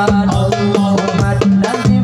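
Several darbukas (goblet hand drums) playing fast, dense strokes and rolls in a steady rhythm, with a wavering melody over them.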